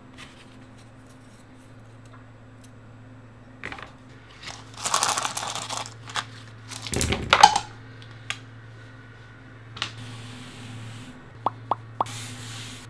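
Packaging rustled, then a knock and small sharp clicks of steel ball bearings and a 3D-printed fidget spinner body being handled on a desk, over a steady low hum. The rustle comes about five seconds in, the loudest knock about two seconds later, and a quick run of clicks near the end.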